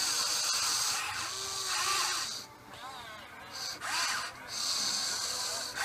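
Huina 580 RC excavator's electric motors and gearboxes whining as the boom and house move, the pitch rising and falling with the motor speed. The whine stops briefly twice around the middle, then picks up again.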